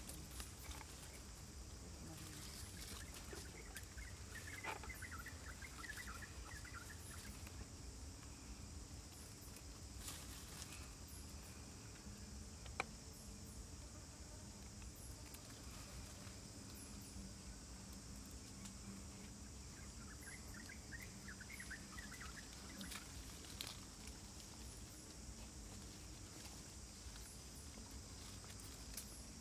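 Faint forest ambience: a steady high insect drone, with light rustles and small clicks from hands working string on a snare frame, and one sharp click about halfway through.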